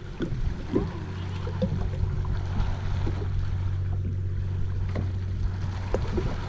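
Kayak afloat on the sea: water lapping at the hull, with a few short, light knocks against it over a steady low hum.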